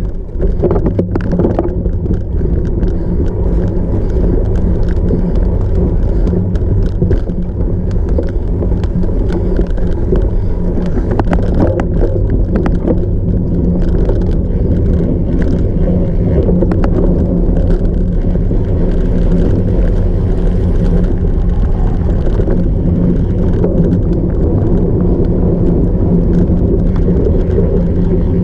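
Ride noise from a cyclocross bike ridden off-road: a steady low rumble with many small rattles and clicks throughout.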